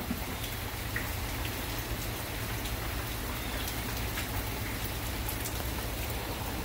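Steady rain falling, an even hiss with scattered sharper drop ticks and a low steady rumble underneath.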